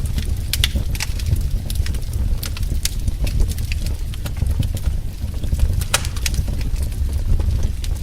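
Wood fire crackling: a steady low rumble of burning with frequent sharp, irregular pops and snaps, one louder pop about six seconds in.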